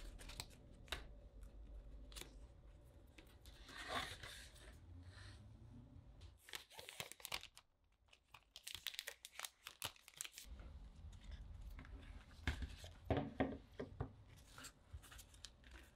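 Packaging being handled: the iMac's power adapter and coiled cable are lifted out of their cardboard holder and paper wrap, with irregular rustling, crinkling and tearing of paper and many small clicks and knocks. The loudest handling comes about thirteen seconds in, when the cable is pulled from its sleeve.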